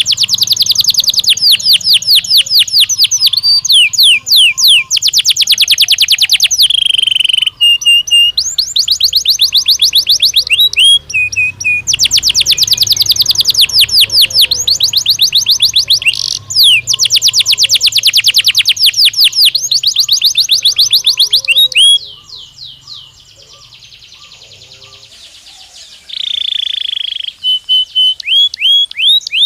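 Canary song: long, loud rolling trills of very rapid repeated high notes, broken by short pauses and brief held whistled notes. About 22 seconds in the song drops to a much softer, quieter passage, then a held note and the fast trills return near the end.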